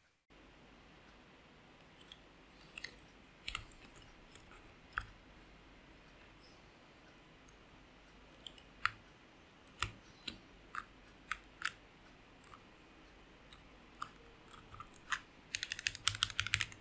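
Mechanical keyboard (Hana60 with Black Cherry Pie switches) with scattered single keystrokes, each a sharp clack, then a quick run of typing near the end.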